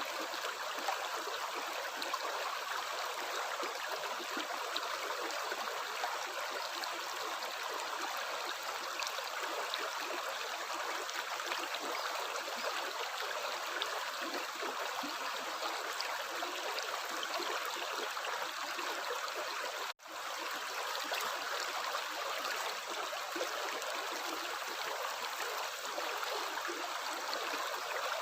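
Steady running water of a stream, an even rushing and trickling. It cuts out for an instant about two-thirds of the way in, then carries on.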